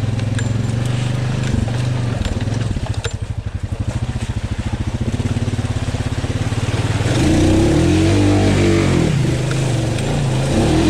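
Honda Rubicon ATV engine running as it churns through a flooded mud hole in two-wheel drive: it eases off a few seconds in, then revs up hard from about two-thirds of the way through and stays loud.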